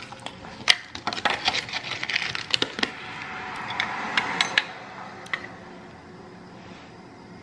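Tableware being handled at a table: a run of sharp clicks and clinks of dishes and utensils, then a short rustling hiss with a few more clinks about three to five seconds in.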